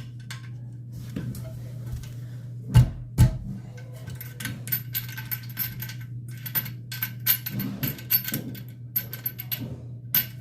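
Small metal clinks of washers and nuts being handled and threaded onto toilet tank-to-bowl bolts. There are two low thumps about three seconds in, and a steady low hum runs underneath.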